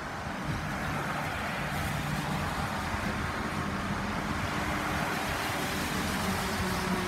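Garbage truck's diesel engine running steadily, with a car driving past on the wet road, its tyre noise growing toward the end.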